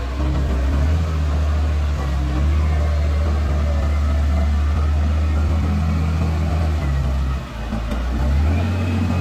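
Wheel loader's diesel engine running hard under load as it digs its bucket into a pile of soil and lifts the load, with a short dip about seven and a half seconds in before it picks up again.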